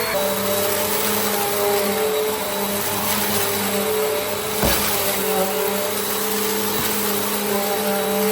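Bissell CleanView Compact vacuum cleaner running steadily, its motor whine shifting slightly in pitch now and then, with one sharp click about halfway through.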